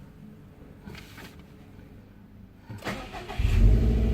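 A 2017 Subaru WRX STI's turbocharged flat-four engine being started: a short crank near the end, a sharp flare as it catches, then a steady idle.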